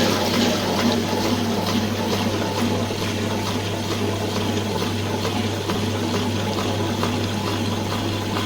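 Comport Plus smart wet grinder running: a steady motor hum under a continuous wet swishing of the grinding stone turning in the drum.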